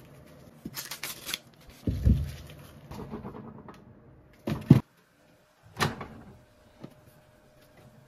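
Rustling of dry corn husks with a few knocks and thuds as ears of unhusked corn are handled and laid inside a microwave oven; the loudest knock, about halfway through, cuts off suddenly.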